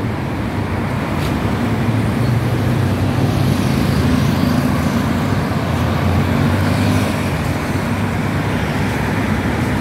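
Steady road traffic noise at a busy multi-lane junction: cars and other vehicles driving through, with a low engine hum that swells and fades as vehicles pass.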